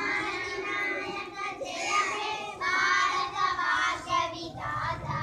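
A group of schoolchildren singing together, without instruments.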